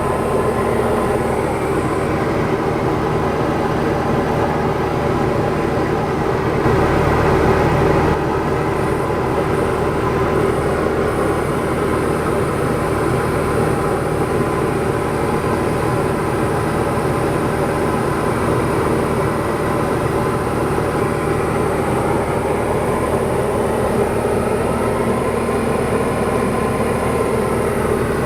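Diamond DA40's piston engine and propeller droning steadily in flight, heard inside the cockpit, with a slightly louder stretch about seven seconds in.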